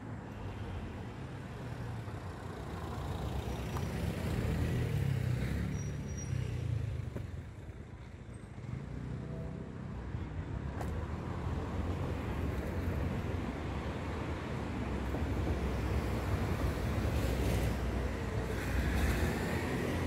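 Road traffic on a city street: cars passing with a low rumble of engines and tyres. It swells a few seconds in, eases off around the middle, then builds again.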